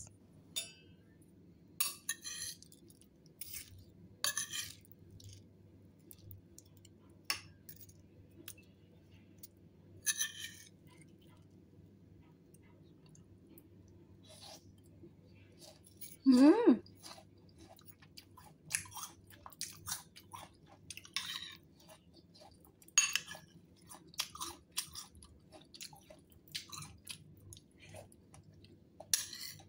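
Close-up mouth sounds of someone eating fruit salad: wet chewing with a little crunch, in scattered bites that come faster in the second half. About halfway through there is one short hum of the voice.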